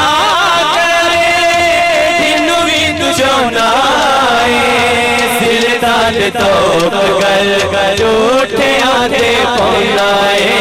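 A male naat singer's voice drawn out in long, wavering melodic runs without clear words, over steady held notes underneath.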